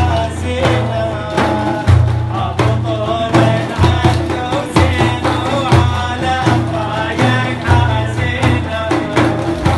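Arabic folk dance music: a steady drum beat under a melodic instrument line that bends in pitch.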